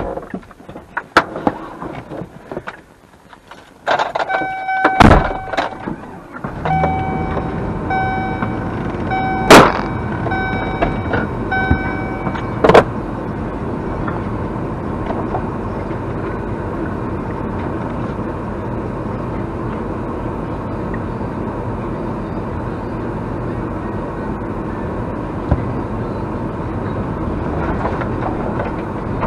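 Vehicle doors banging shut and a vehicle's warning chime pulsing repeatedly, then the engine starts about six or seven seconds in and runs steadily.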